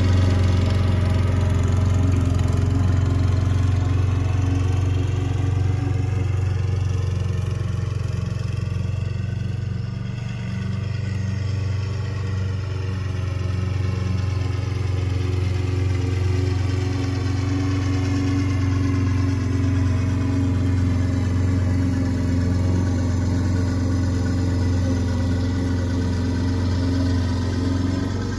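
Marina Systems Grinder Zero mulching lawn mower running steadily under its Honda GCVx 200 single-cylinder four-stroke engine while it mows wet grass. It holds an even, fixed engine speed throughout.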